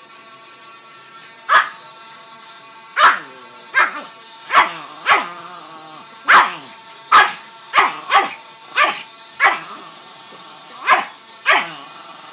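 Chihuahua barking over and over, about a dozen sharp barks at uneven intervals starting a second and a half in, against the steady drone of a vuvuzela horn sound played through a phone's speaker from an app.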